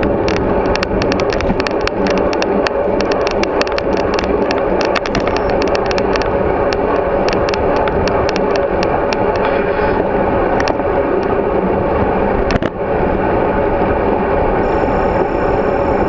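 Steady wind and road noise on a bicycle-mounted GoPro Hero3 in its housing while riding, with many sharp clicks and rattles over the first ten seconds and one knock about twelve and a half seconds in. A brief high-pitched tone sounds near the end.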